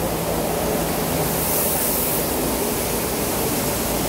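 Maxis automatic carpet-washing machine running: its rotating brush discs scrub a foam-soaked carpet, giving a steady rushing wash noise over a low, even motor hum.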